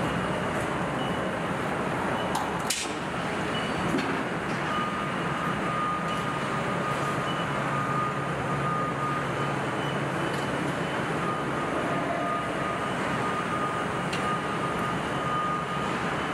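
Car assembly plant floor noise: a steady machinery din with a few sharp clicks and knocks, and a thin steady tone that sets in about five seconds in.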